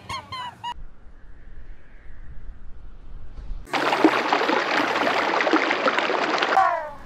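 Running water, starting a little past halfway, loud for about three seconds and then cutting off suddenly.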